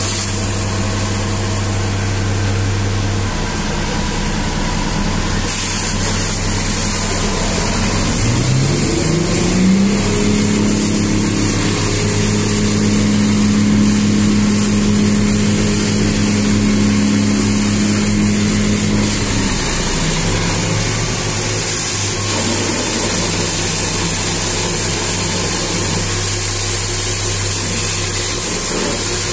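Water jet from a hose hissing steadily against a dump truck's tyres and the muddy ground, with an engine running close by. About eight seconds in the engine speeds up in a smooth rise, holds the higher speed for about ten seconds, then drops back to its lower, steady speed.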